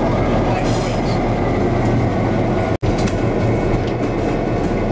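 Diesel locomotive running as the train rolls along the track: a loud, steady rumble. The sound drops out for an instant a little past halfway, then carries on the same.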